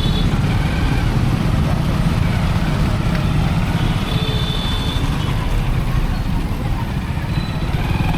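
A motorcycle being ridden through town traffic: a steady rumble of engine and road noise, with a short high-pitched tone about four seconds in.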